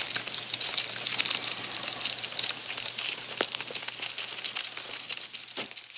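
Rats gnawing and chewing kernels off a corn on the cob close to the microphone: a dense, rapid crackle of small crunching clicks.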